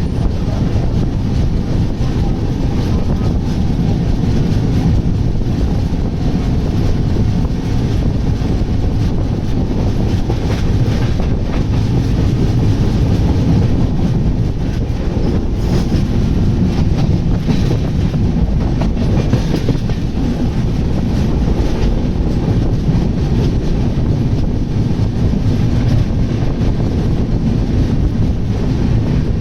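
Train running at speed: a steady, loud rumble of wheels on rails, with faint clickety-clack from the rail joints.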